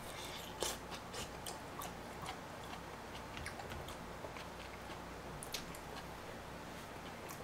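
Eating sounds: chewing a mouthful of mala soup noodles, with scattered small clicks and taps from the mouth and the spoon and tongs in the bowls, most of them in the first two seconds and one louder one about five seconds in.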